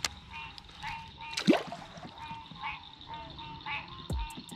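Frogs croaking in a repeating chorus, about two short calls a second, over a steady high insect buzz. A sudden loud swish about a second and a half in and a low thump near the end cut through it.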